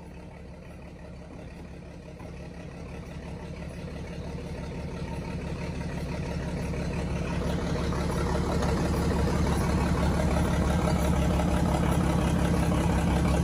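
Diesel engine of a lattice-boom crane running steadily. It grows gradually louder over the first half or so, then holds level.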